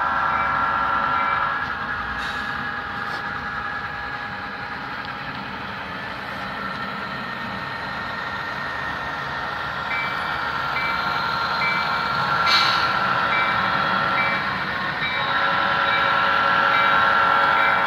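Sound-equipped HO scale model diesel locomotives running, their recorded engine sound playing from onboard speakers as steady high tones over a rumble. The tones fade about two seconds in and come back louder about ten seconds in, with one short click a little later.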